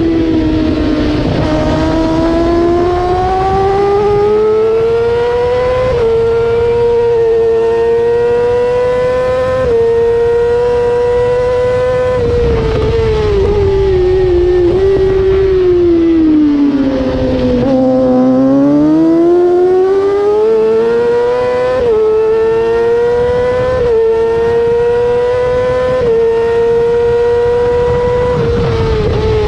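A 600cc supersport race motorcycle engine at racing speed, heard close to its exhaust silencer with wind rush. The engine note climbs and holds high with a short break every couple of seconds at each gear change, falls away under braking a little past the middle, then climbs again through the gears.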